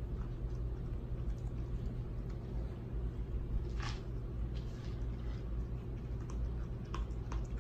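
Kitten licking its fur while grooming: a few soft, wet licking clicks, the clearest about four seconds in and a pair near the end, over a steady low hum.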